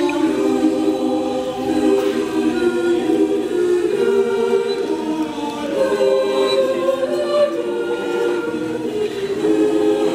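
Mixed choir of men's and women's voices singing in harmony, holding long notes that move from chord to chord.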